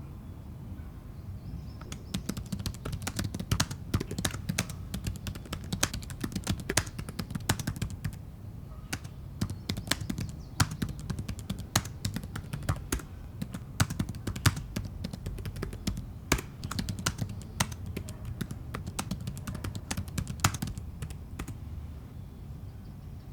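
Rapid, irregular clicking and tapping, like keys being typed, starting about two seconds in and stopping near the end, over a steady low rumble.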